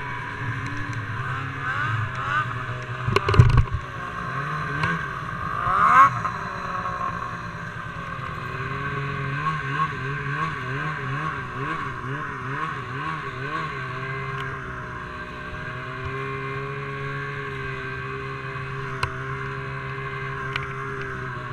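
Snowmobile engine running under way, its pitch rising and falling over and over. A loud knock comes about three seconds in and another jolt around six seconds. The engine settles to a steadier note in the last few seconds.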